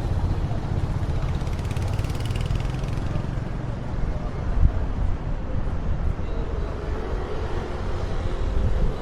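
Steady low wind rumble on an Insta360 X4 camera microphone fitted with a wind-protection cover, mixed with street traffic. A brief hiss comes about two seconds in, and a faint tone near the end.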